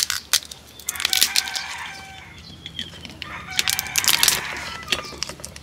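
Hands cracking and pulling apart the shell of a baked lobster, with sharp cracks and bursts of crackling crunches, the loudest one right at the start. A rooster crows in the background, about a second in and again near four seconds.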